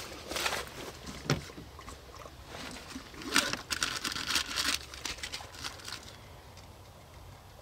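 Rustling and crinkling of a plastic food packet as hands dig through a soft-sided bag, with a sharp knock about a second in and the busiest crinkling around the middle; it goes quieter after about six seconds.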